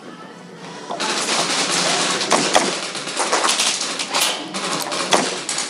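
Rapid gunfire: volleys of sharp shots over a loud hiss, starting about a second in.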